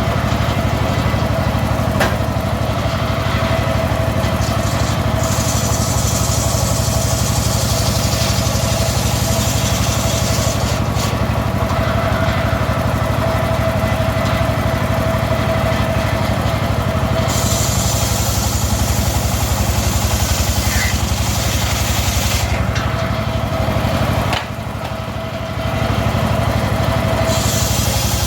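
Homemade circular saw running steadily, its motor and spinning blade giving a constant hum with a held tone, and long stretches of added hiss as the blade cuts through teak wood. About 24 seconds in the sound drops for a second or two, then picks up again.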